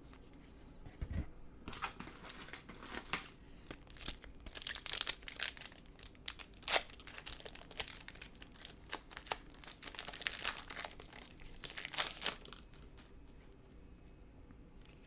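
Wrapper of a Topps baseball card pack crinkling and tearing as it is opened, an irregular run of crackles lasting about ten seconds, with a soft thump just before it starts.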